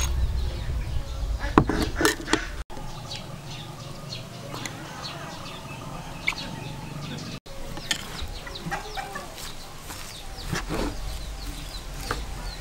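Chickens clucking in the background, with a few sharp clicks and scrapes of a metal spoon against a plastic bowl as the salad is seasoned and stirred.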